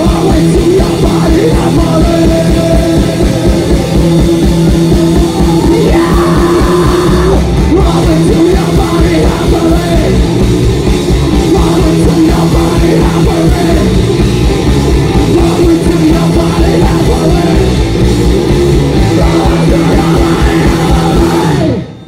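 Rock band playing loud live, with fast drumming under a held guitar chord. The song ends abruptly just before the end.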